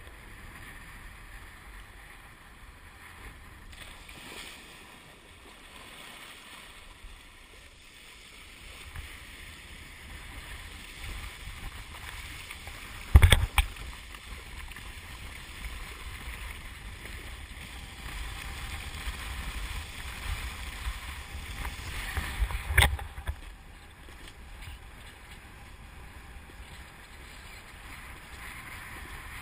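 Kiteboard riding over water: a steady rush of water and wind on the action-camera microphone, with two sharp thumps, one about halfway through and another some ten seconds later.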